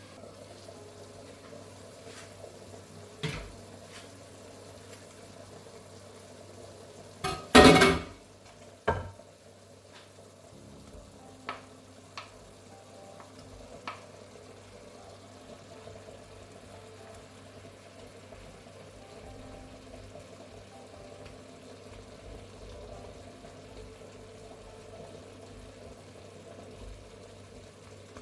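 Kitchen clatter of dishes and utensils: a few sharp knocks, the loudest a short clatter about eight seconds in, over a steady low hum.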